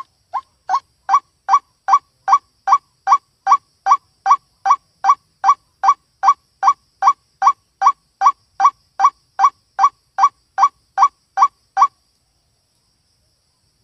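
White-breasted waterhen (ruak-ruak) calling, played as a lure recording. A steady run of short, identical notes at about two and a half a second grows louder over the first second or so and stops abruptly about twelve seconds in.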